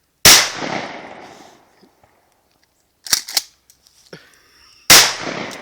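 12-gauge shotgun loaded with birdshot fired twice, about four and a half seconds apart, each loud blast followed by a long echoing decay. Two quick sharp clacks come between the shots.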